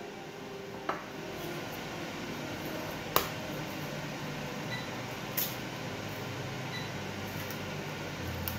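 An egg cracked against a glass bowl: a few sharp clicks, the loudest about three seconds in, over a steady background hiss.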